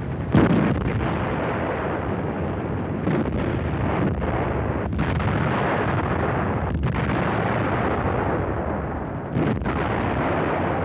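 Artillery firing and shells exploding: a heavy boom about half a second in, then several more booms at uneven intervals over a continuous rumble.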